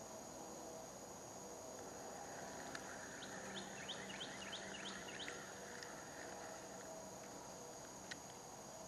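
Steady high-pitched insect drone, with a bird singing a quick run of about eight short repeated chirps a few seconds in. A single faint click near the end.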